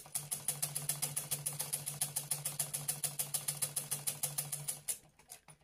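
Usha sewing machine running at a steady pace, clicking about nine times a second over a low hum, then stopping about five seconds in. It is running smoothly after thread caught in the mechanism was cleared and the machine was oiled.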